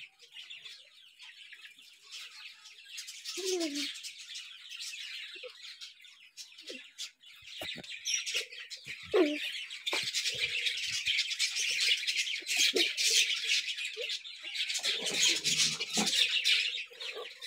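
A flock of budgerigars chattering in an aviary: a dense, continuous stream of fast high chirps and warbles, growing louder partway through, with a few short lower calls among them.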